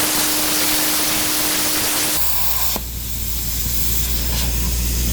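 Electric arc welding on a steel post-pounder cap: a steady, loud hiss from the arc. The sound changes a little over two seconds in.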